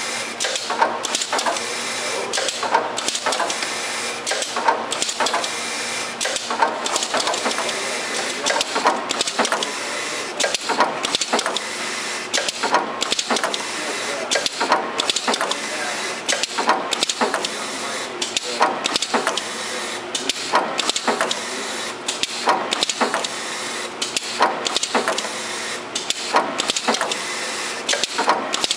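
Automatic syringe labeling machine running: conveyor and label applicators making a busy mechanical clatter, with a brief dip about every two seconds as the machine cycles.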